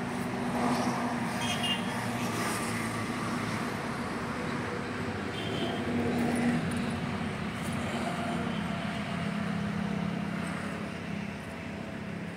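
Steady low engine hum of motor traffic over a noisy background.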